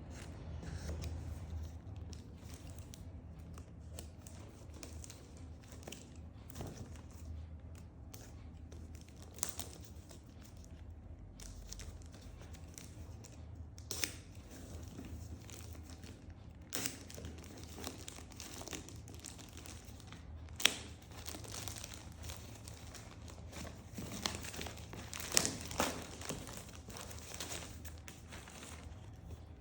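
Phone case packaging being handled and opened: crinkling plastic or paper with some tearing, and several sharp clicks and taps scattered through, over a low steady hum.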